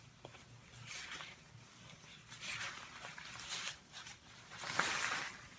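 Soft rustling of long hair and a cutting cape as a bun is let down and the hair is worked loose by hand, in several short brushes, the strongest near the end. A faint steady low hum sits underneath.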